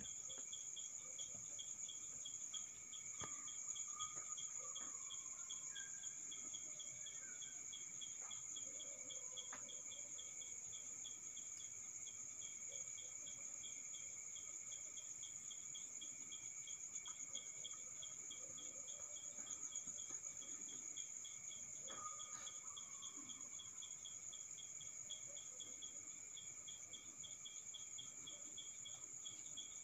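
Night chorus of crickets: a steady high trill, with another insect chirping in a fast, even pulse beneath it.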